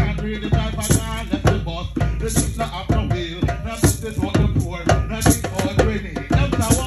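Nyahbinghi hand drums playing a steady heartbeat rhythm, about two strikes a second, with a man's voice chanting over them through a microphone.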